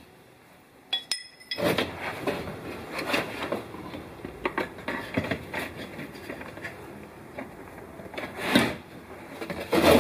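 A metal hand tool clinks against metal about a second in, with a brief high ring. Irregular small clicks and knocks of tool and bottle handling follow, with a louder knock near the end.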